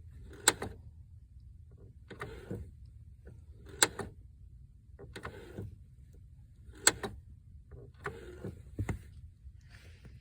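Clutch pedal of a 1997 Saturn SC2 being worked down and up repeatedly. Each stroke brings a rubbing swish and a sharp click, roughly every three seconds: the clutch clicking fault.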